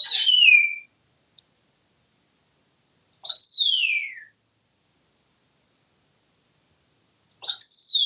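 An African grey parrot whistles three times, about four seconds apart. Each whistle is a loud note that rises briefly, then slides down in pitch over about a second.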